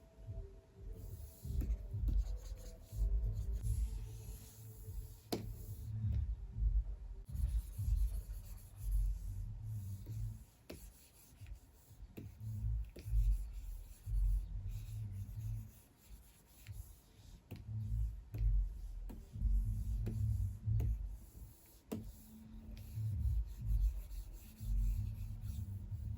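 Pen-display stylus nib rubbing and scratching across a Wacom Cintiq Pro 24 screen in short, irregular drawing strokes, with an occasional sharp tap of the pen on the glass.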